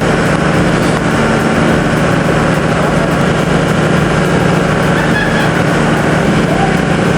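BR200S mobile crusher running under load: a steady, loud diesel-engine drone over constant grinding mechanical noise.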